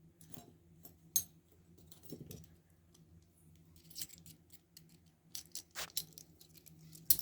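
Small metal parts lightly clicking and tinkling as they are handled, in scattered, irregular taps, with a sharper click about a second in and another near the end.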